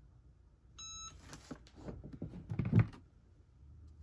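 Cricut EasyPress heat press gives one short electronic beep, then the press is lifted and set down with a low thud among rustling paper sheets.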